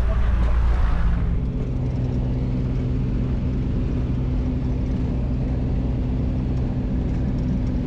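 Small single-engine aeroplane's engine and propeller droning steadily, heard inside the cabin. The noise drops a little and settles about a second in.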